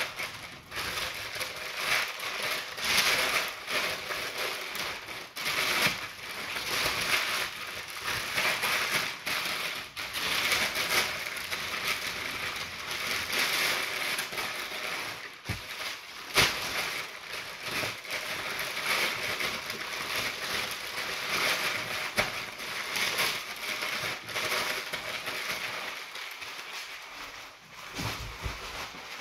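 White packing paper crumpled, folded and pressed down by hand over crockery in a carton: a continuous crackling rustle of crinkles, with a couple of sharper cracks about halfway through.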